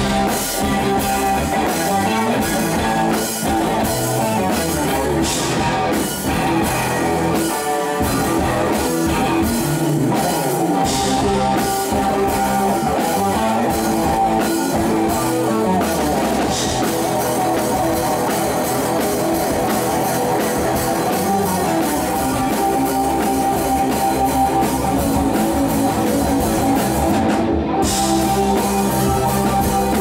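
Live rock band playing an instrumental stretch of a song: electric guitars, electric bass and drum kit, continuous and at a steady level.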